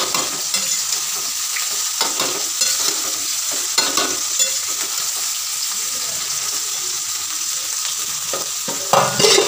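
Rice frying in a metal wok, with a spatula stirring and scraping against the pan over a steady sizzle. A few louder knocks come near the end.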